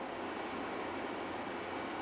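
Steady background hiss with no distinct events: room tone.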